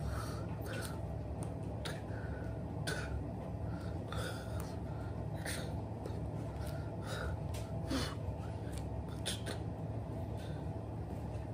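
Steady low hum with many short, soft clicks and rustles scattered throughout, from a person's hands, clothing and mouth moving while signing, with some breathing.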